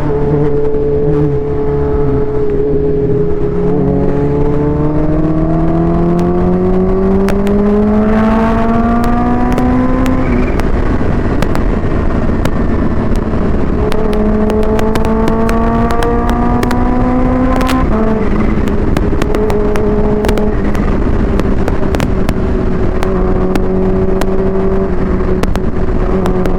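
Supercharged Kawasaki Ninja H2 inline-four through a Vandemon exhaust, heard from the saddle under acceleration: the engine note climbs steadily for several seconds, breaks up about ten seconds in, climbs again, then drops with a click about eighteen seconds in at a gear change and holds a steady pitch. Heavy wind noise on the rider's microphone runs underneath.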